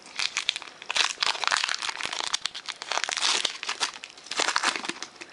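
Foil wrapper of a Pokémon trading card booster pack crinkling and tearing as it is opened by hand, in two spells of dense crackling with a brief lull about four seconds in.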